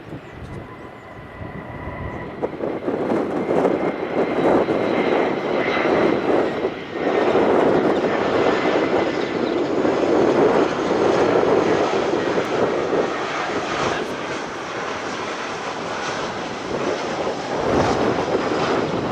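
Jet airliner's engines going by close, a loud rushing rumble with a thin whine, swelling over the first few seconds and staying loud, easing slightly near the end.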